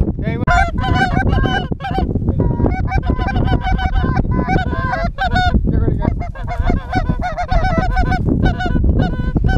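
A flock of large birds calling, many overlapping honking calls one after another, over a low rumble of wind on the microphone.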